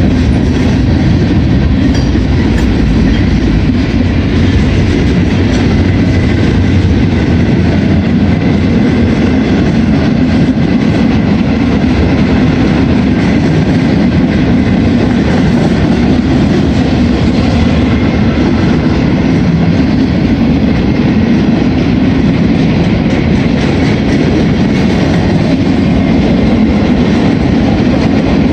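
Mixed freight train's cars, covered hoppers and flatcars, rolling steadily past, a loud continuous rumble of steel wheels on the rails.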